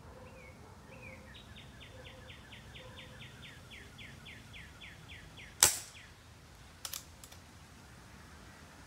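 A songbird sings a fast trill of quick falling notes for about four seconds. Then a Crosman P-Rod pre-charged air pistol fires once with a sharp crack, the loudest sound here, and two faint clicks follow about a second later.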